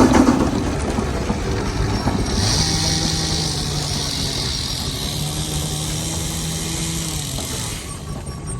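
Steam whistle blown in one long blast of about five seconds: a low steady tone with a strong steam hiss, starting about two seconds in and cutting off near the end, over the steady running of engines.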